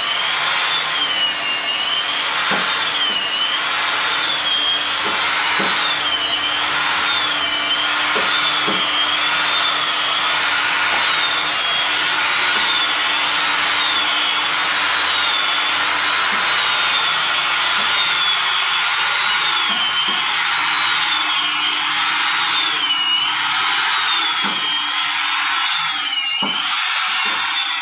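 An electric woodworking machine's motor running steadily with a high whine that dips in pitch about every second and a half, with a few faint knocks.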